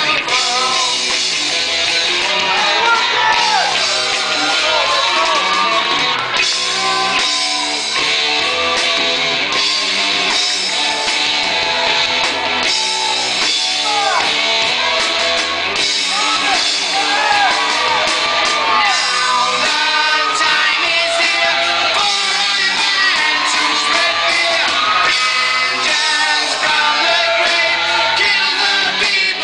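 Loud rock-style music with singing, with shouting and yelling over it.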